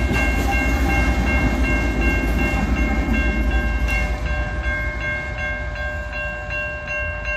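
Freight train of hopper cars and a diesel locomotive passing a level crossing: a heavy low rumble that eases off after about five seconds, with the crossing bell ringing steadily at about three strikes a second.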